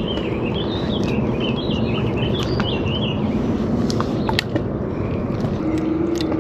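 A songbird sings a quick warbling song for about the first three seconds, over a steady low rumble of wind on the microphone. About four seconds in come a few sharp clicks as the baitcasting reel and rod are handled.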